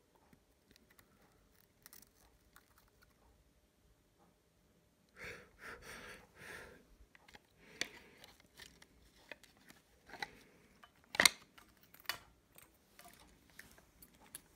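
Hands handling a power bank's plastic case, cylindrical lithium cell and wiring: faint ticks, a short stretch of rustling, then a run of small clicks and taps, the sharpest about eleven seconds in.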